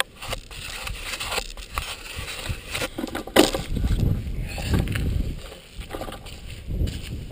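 Mountain bike rolling down a rough dirt track, heard from a handlebar-mounted camera: irregular rattling and knocking from the bike, with a sharp knock about three and a half seconds in and a low rumble after it.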